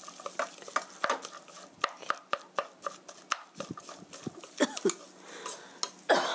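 Wooden spoon and chopsticks stirring a ground meat and onion filling in a stainless steel mixing bowl: irregular clicks and taps against the bowl, with a louder clatter near the end.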